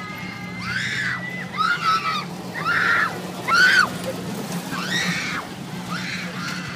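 Riders screaming on a spinning carnival ride: short high shrieks about once a second, the loudest about three and a half seconds in, over a steady low hum.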